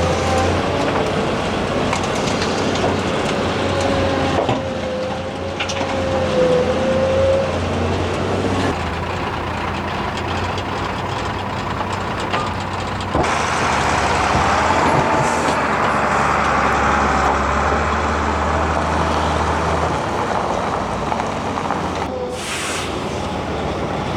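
Hyundai 290LC-7A excavator's diesel engine running with its hydraulics working while loading a truck. A thin squeal sounds a few seconds in, and about halfway through the machine grows louder as it works harder. A short hiss comes near the end.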